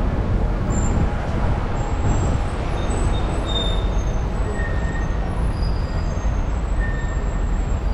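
London bus on the move: a steady low engine and road rumble, with short high-pitched squeaks here and there.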